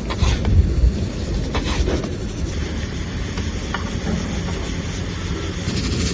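Kitchen knife tapping on a cutting board a few times in the first two seconds and once more near four seconds in, as pork is sliced into shreds, over a steady low rumble and hiss.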